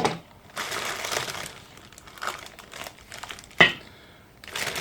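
Packaging being handled as parts are unwrapped: crinkling and rustling in patches, with one sharp knock about three and a half seconds in.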